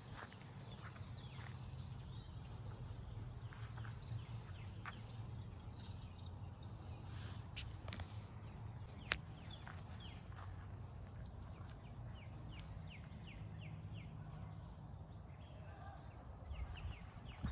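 Small birds chirping in short repeated high notes, more often from about ten seconds in, over a faint steady low rumble of outdoor background noise, with scattered light clicks and one sharp tick about nine seconds in.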